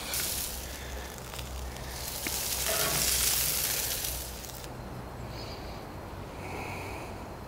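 Freshly grilled chicken wings sizzling as they come off the gas grill onto a plate: a hiss that swells about two seconds in and cuts off abruptly just past the middle. After it, a faint background with a few short high chirps.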